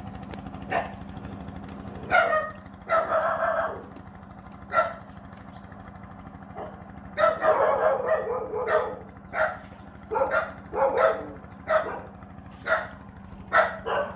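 A dog barking over and over, about a dozen short barks, some in quick runs, over a steady low hum.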